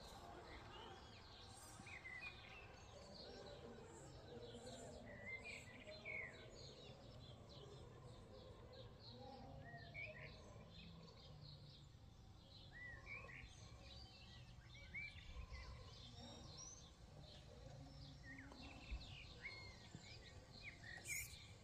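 Faint outdoor ambience with birds chirping and calling throughout in many short, quick chirps.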